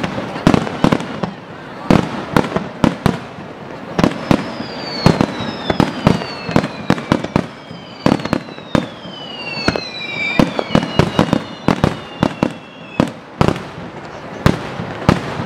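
Fireworks display: aerial shells bursting in a rapid, irregular run of booms and cracks. Through the middle, several high whistles slide down in pitch among the bangs.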